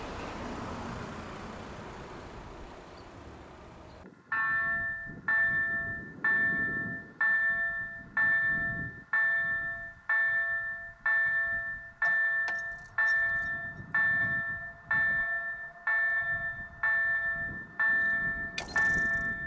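The noise of a passing train dies away, then about four seconds in a level-crossing warning bell starts ringing, one clear strike a little faster than once a second, each ringing out before the next. The bell signals that the crossing has been activated for an approaching train.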